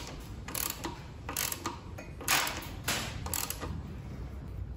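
Irregular metallic clicks and short ratcheting strokes from hand tools working on a reel mower's roller-chain drive, as the chain is set and its tensioner nut tightened. About eight separate strokes, the loudest a little past two seconds in.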